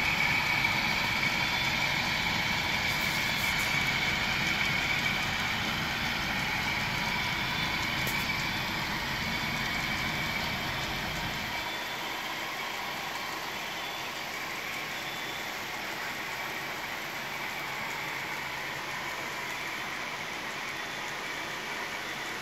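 HO scale model coal train running past: a steady engine-like drone from the GEVO locomotives mixed with the rolling of the coal hoppers on the track. The low rumble drops away about halfway through and the sound slowly grows quieter.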